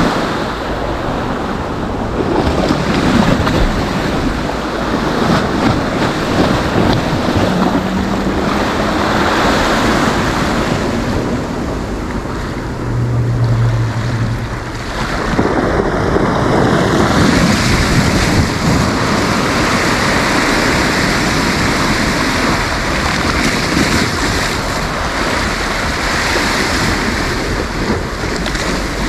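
Sea waves breaking and washing in on the beach in slow surges, with wind buffeting the microphone.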